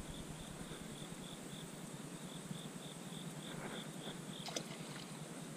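An insect chirping in a steady, even pulse, about four chirps a second, with one faint click about four and a half seconds in.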